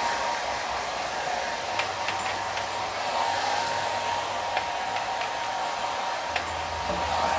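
Handheld hair dryer running steadily, blowing on a dog's coat, with a few faint clicks and knocks.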